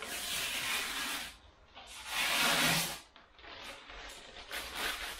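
Protective plastic film being peeled off the clear plastic lid of a Bambu Lab AMS: a long peel of about a second, a louder one about two seconds in, then shorter, softer pulls near the end.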